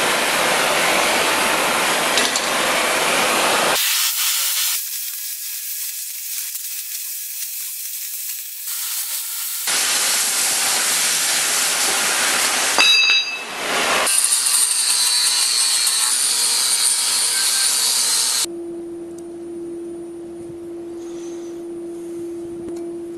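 Oxy-fuel cutting torch hissing as it cuts through heavy steel plate, heard in edited stretches, with a short sharp pop about halfway through. For the last few seconds a quieter steady hum at a single pitch takes over.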